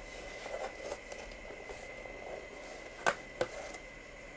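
Cardboard box lid being worked open by hand: soft scraping and rubbing of cardboard, with two sharp knocks about three seconds in, a third of a second apart.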